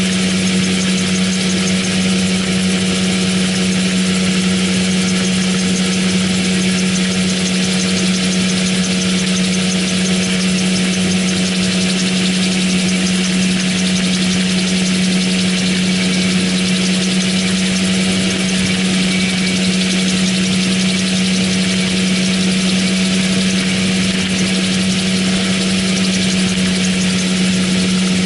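AutoGyro MTO Sport gyroplane in cruise flight, heard from the cockpit: the pusher engine and propeller give a steady, unchanging drone with a strong low hum, over a hiss of rushing air.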